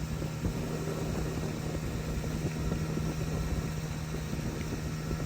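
Boat's outboard motor running at a steady speed: a constant hum over an even rushing noise.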